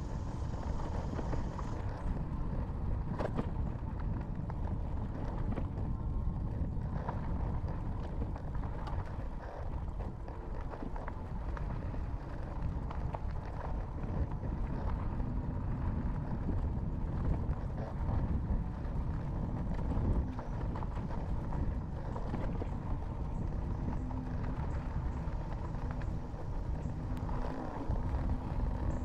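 Magicycle 52V Cruiser fat-tire electric bike riding over a rough dirt trail: a constant rumble of tires on the ground, with many small rattles and knocks as it jolts over the bumps. A faint steady hum comes and goes in the second half.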